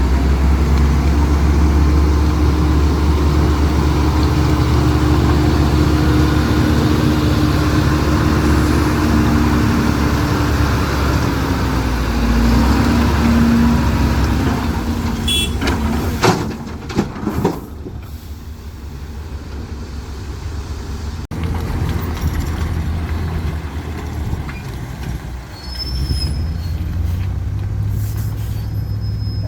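Heavy diesel earthmoving machinery running loud and steady, with a few sharp knocks around the middle. The engine then drops quieter for a few seconds before picking up again.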